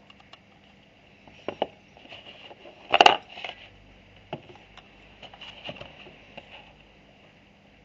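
Handling noise from a Tennessee digital pocket scale and its cardboard box: scattered light clicks and knocks, loudest a short clatter about three seconds in, as the scale is fitted into the box's insert.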